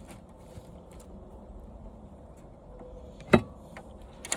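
Handling noise from taking apart an old TV: faint small ticks and rustling, then one sharp clink of hard parts knocking together about three and a half seconds in, and a smaller clink near the end.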